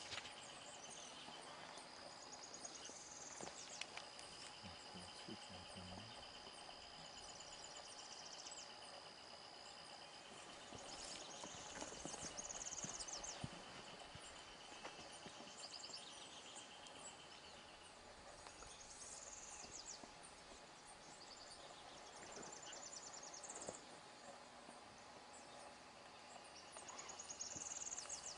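Faint forest ambience: insects trilling at steady high pitches, each trill lasting several seconds, with brief high bird chirps now and then.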